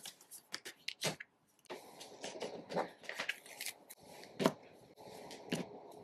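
Tarot cards being handled on a tabletop: light taps, slides and card-on-card scrapes as decks are picked up, moved and set down. One louder tap comes about four and a half seconds in.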